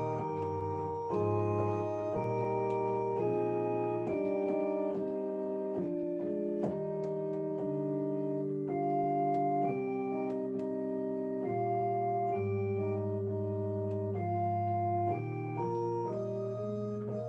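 Keyboard playing a slow church prelude on an organ sound: full chords held steady for a second or more each, changing from chord to chord without the notes fading.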